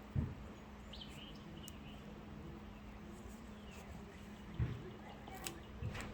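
A few soft, low knocks from hands handling the smoker door and gasket tape, over a faint steady hum, with a couple of faint high chirps about a second in.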